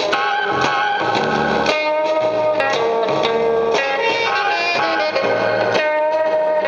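Guitar-led music played from a 45 RPM record through a 1950s RCA tabletop Hi-Fi record player's push-pull amplifier and 8-inch speaker.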